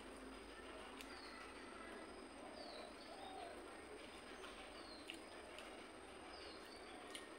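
Faint bird calls: a short, high note falling in pitch, repeated about every two seconds, over low background hiss with a few soft clicks.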